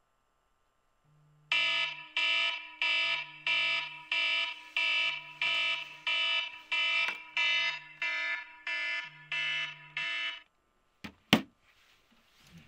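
Smartphone alarm ringing: a rich electronic tone repeating about twice a second, with a low hum in short spells underneath. The alarm stops suddenly about ten seconds in, and a single sharp knock follows.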